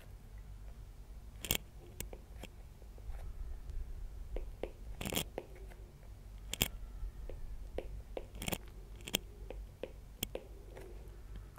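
Stylus tapping and clicking on a tablet screen while digits are written: scattered faint clicks at irregular intervals over low room tone.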